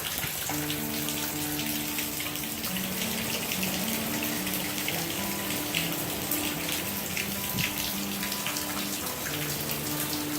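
Steady hiss of rain falling in a hurricane's outer bands, with soft background music of slow held notes underneath.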